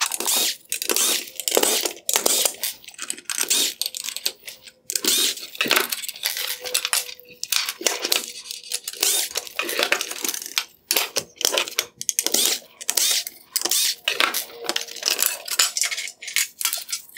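Rapid, irregular clicking and clattering of small hard plastic headlight parts and Torx screws being handled, pulled apart and set down on a wooden workbench as the driving-light assembly is taken apart.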